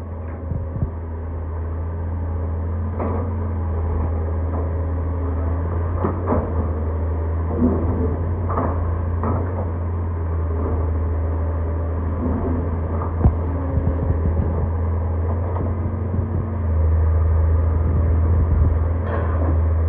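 A vehicle engine idling with a steady low hum, with scattered light knocks and clicks over it. The hum grows louder about three quarters of the way through.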